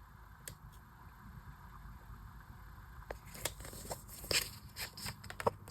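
Paper and sticker handling on a journal page: faint for the first few seconds, then from about three seconds in a quick run of small clicks, taps and rustles as stickers are lined up and pressed down.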